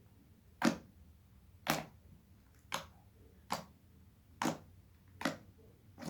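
Slime being squeezed and folded by hand, giving six short, sharp pops, about one a second.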